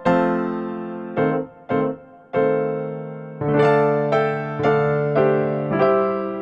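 Background piano music: chords and single notes struck one after another, each left to ring and fade.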